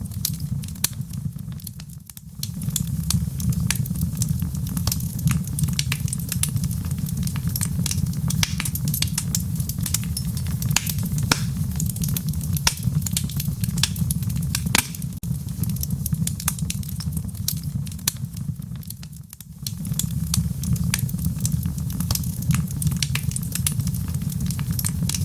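Fire burning in a fireplace: a steady low rumble of flames with frequent sharp crackles and pops. The rumble dips briefly twice, about two seconds in and about three-quarters of the way through.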